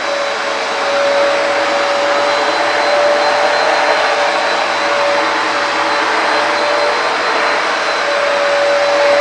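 Hoover PowerDash carpet cleaner running steadily: the suction motor gives a constant whine with a rushing roar under it, a little louder about a second in.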